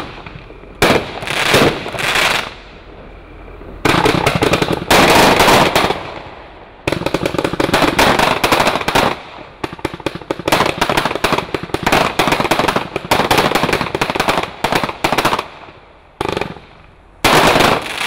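Tornado Power consumer firework cake (battery) firing: volleys of rapid pops and crackles in quick succession, broken by a few short lulls, with a loud final volley near the end.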